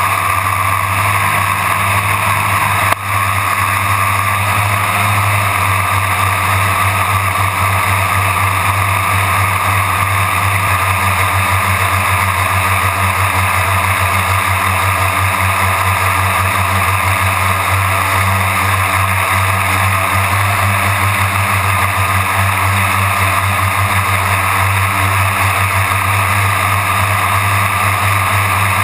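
Quadcopter's electric motors and propellers droning steadily in flight, heard close from the onboard camera, with a short click about three seconds in.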